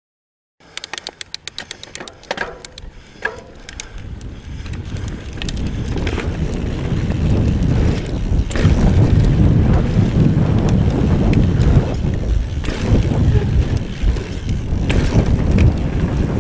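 Mountain bike riding down a dirt trail, starting about half a second in: rapid clicking at first, then tyre rumble, frame rattle and wind on the microphone that grow louder as the bike picks up speed, with occasional knocks over bumps.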